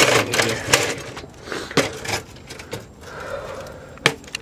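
Footsteps on gravel, then scuffs and a few sharp knocks as someone climbs up onto a tall truck's running board and into the cab.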